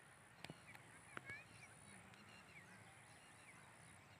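Faint outdoor ambience of many small birds chirping, with a couple of light clicks about half a second and a second in.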